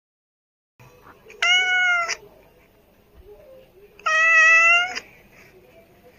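Calico cat meowing twice: a short meow about a second and a half in, and a longer, slightly rising one about four seconds in.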